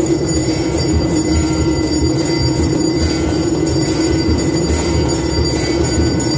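Temple aarti bells ringing continuously over a fast, steady drum beat.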